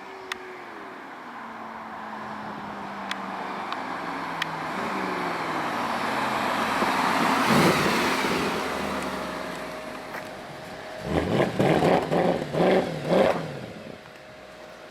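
Mercedes-Benz C63 AMG's 6.2-litre V8 with quick throttle blips: about eleven seconds in it revs sharply four or five times in a row, each rev rising and dropping back fast, then settles to idle. Before that, a vehicle sound swells to a peak about halfway through and fades away.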